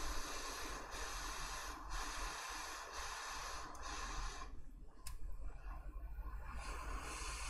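Hissing from a soldering-iron tip wiped across flux-covered BGA pads on an iPhone logic board, the flux boiling off as the pads are cleaned. It comes in strokes with short breaks about once a second, stops about halfway through and starts again near the end.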